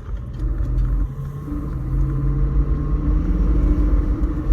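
Cadillac's engine and tyre noise heard from inside the cabin while driving: a steady low rumble, with the engine note climbing slightly as it picks up speed.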